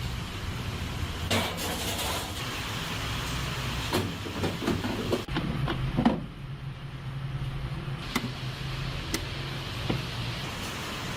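A steady low mechanical hum with scattered clicks and knocks, thickest around the middle.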